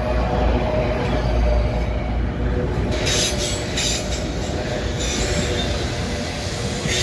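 Freight train of autorack cars rolling past close by: a heavy low rumble, with bursts of high-pitched wheel noise coming in from about three seconds in.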